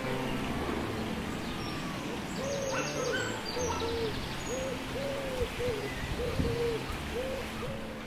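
A bird calling a quick run of short, soft hooting notes, two or three a second, starting about two and a half seconds in, over a steady rushing hiss.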